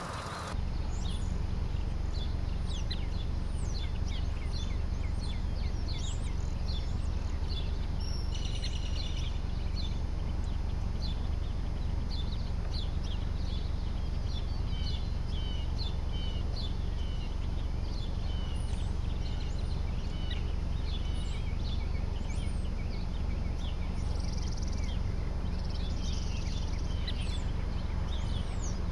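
Many birds chirping and singing over a steady low rumble.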